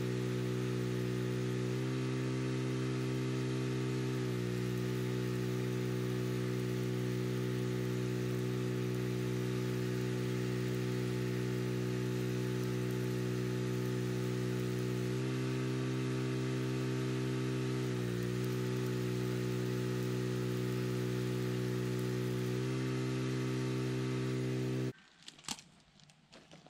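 Arc welding steel: a steady low hum from the welding power setup, its pitch shifting slightly a few times, under a constant crackling hiss from the arc. Both stop abruptly a little before the end.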